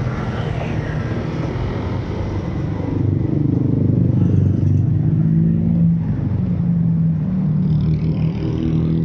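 Motor vehicle engine running with road noise while driving. It grows louder about three seconds in, the engine note gliding down in pitch, then it holds steady.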